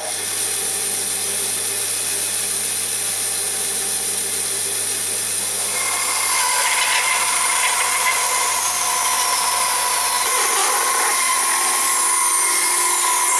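Bandsaw running and cutting knife handle scales: a steady machine noise with a low motor hum, and a whining tone joins about halfway through as the blade cuts.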